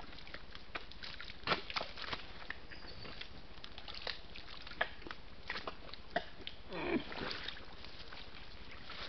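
Rutting red deer stag wallowing in a mud wallow: irregular wet sloshes and slaps of mud as he works his antlers and head through it, loudest at about seven seconds as he goes down to roll, over a steady hiss.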